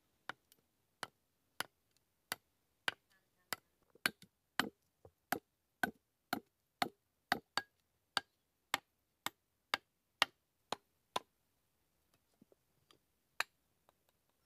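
A blade chopping into a wooden log in sharp, regular strokes, about two a second. The strokes stop a few seconds before the end, and a few scattered lighter knocks and one more hard blow follow.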